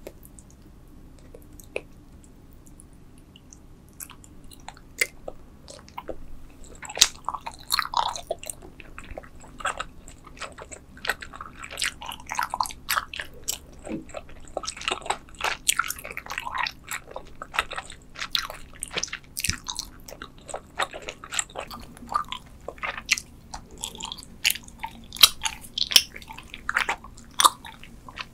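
Close-miked chewing of Trolli spider-shaped gummy candy. The mouth sounds are quiet for the first few seconds, then become a dense, continuous run of short clicks and smacks from about five seconds in.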